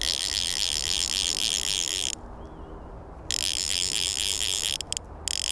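Click-and-pawl fly reel's ratchet clicking rapidly as the spool turns with a hooked carp on the line. It comes in three runs: about two seconds, then after a pause another second and a half, then a short burst near the end.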